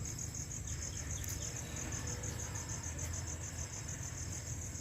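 Crickets chirping: a steady high pulsing of about ten pulses a second, over a low rumble.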